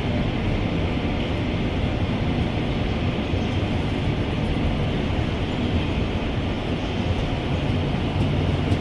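Korail Mugunghwa-ho passenger cars rolling past along a station platform, giving a steady running noise of wheels on rail that holds even throughout.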